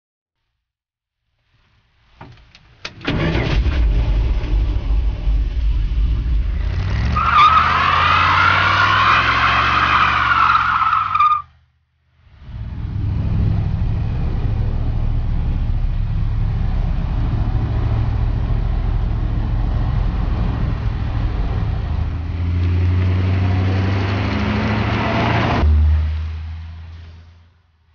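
A 1966 Dodge A100's factory V8 running and revving, with a high wavering squeal for about four seconds in the middle of the first run. After a short break the engine runs steadily while driving and picks up near the end, then cuts off and fades.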